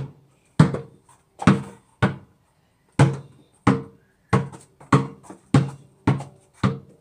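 A basketball dribbled on paving slabs: about ten bounces, roughly one every two-thirds of a second, each a sharp slap with a short ringing tail. There is a pause of about a second around two seconds in.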